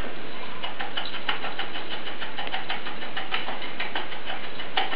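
Salt being shaken from a small metal shaker into a steel mixing bowl: many faint, irregular ticks over a steady background hiss.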